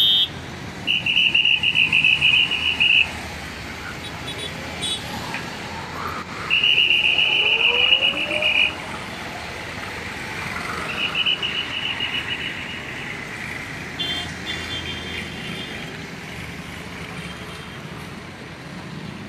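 Road traffic passing slowly, with a shrill high tone sounding in three long blasts of about two seconds each, the third fainter, and weaker high tones after them.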